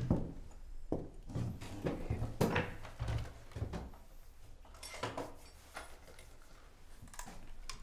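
Keys and a lock being worked at an old wooden door: a scattered series of clicks, rattles and light knocks, louder in the first half and sparser later.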